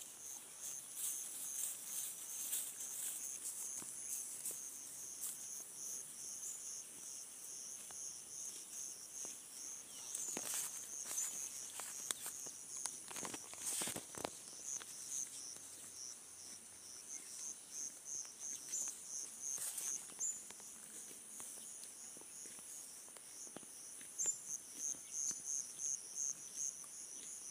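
Insects chirping in a steady high-pitched chorus, a fast pulsing trill over a constant hiss, with a few short rustles about ten to fourteen seconds in.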